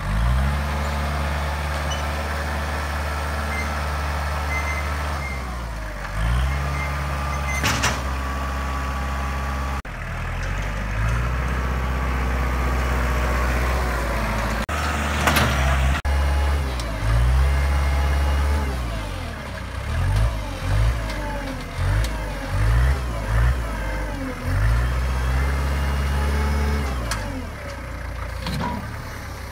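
Kubota compact tractor's diesel engine working a front-end loader, its pitch dropping and climbing as it is throttled up and down, with quick repeated revs in the second half. Two sharp knocks stand out, about eight and fifteen seconds in.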